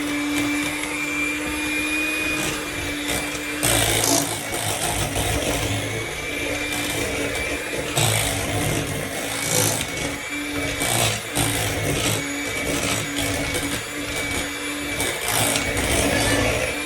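Electric mixer running, whipping cooked potatoes into mashed potatoes. At first the motor hum is steady. From about four seconds in it wavers and is broken by irregular clatter as the beaters work through the potatoes in the bowl.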